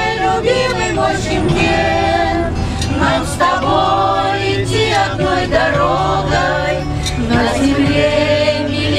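Choir of men and women singing a song over steady held accompaniment notes.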